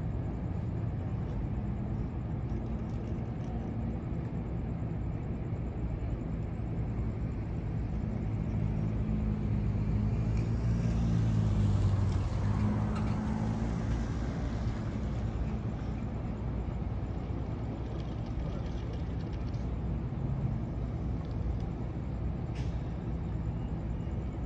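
Steady road-traffic rumble, swelling as a vehicle passes about halfway through.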